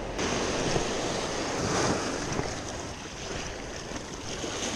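Sea surf breaking and washing up a sandy beach, swelling to its loudest about two seconds in, with wind buffeting the microphone.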